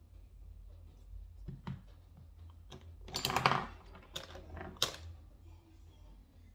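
Makeup palette and brush being handled close to the microphone: a scatter of sharp clicks and taps, with a louder rustle about three seconds in.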